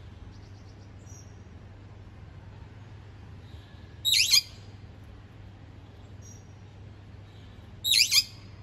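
Bali myna giving two loud, short calls about four seconds apart, with a few faint high chirps between them, over a steady low hum.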